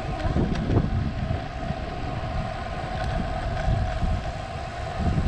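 Wind buffeting the microphone of a GoPro mounted on a moving tandem bicycle, with a low, uneven rumble of tyres on the road and a steady faint hum.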